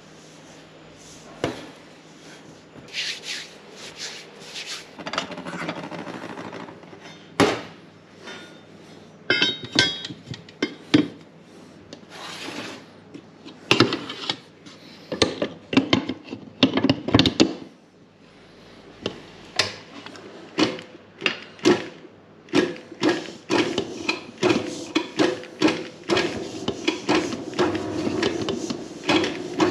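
Stainless steel mixing bowl of flour clattering and scraping as it is handled and fitted to a commercial planetary mixer. In the last several seconds the mixer's motor starts a steady hum under repeated knocks as the flat beater works the dry mix.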